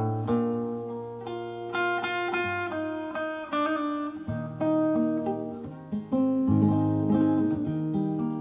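Acoustic guitar playing the song's instrumental intro, picking separate notes over low bass notes, with a quick run of higher notes a couple of seconds in.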